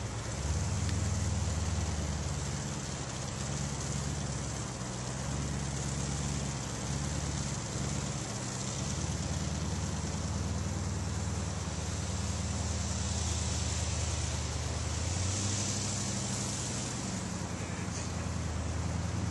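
Monster buggy's engine running as it drives off, a steady low rumble that shifts down in pitch about fifteen seconds in.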